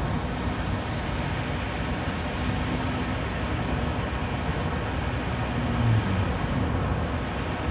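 Steady in-cabin noise of a car driving on a wet highway in heavy rain: tyres hissing on the wet road under a low engine hum, with a short low swell about six seconds in.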